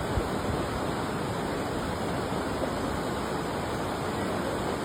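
A steady rushing noise at an even level.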